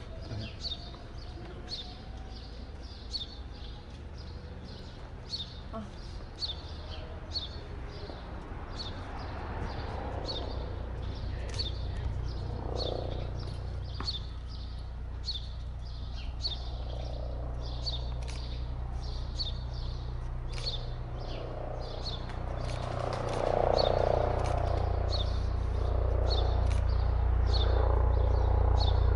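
A small bird chirping over and over, short high chirps about once a second, while the low rotor drone of an approaching Airbus H145 rescue helicopter grows louder over the last few seconds.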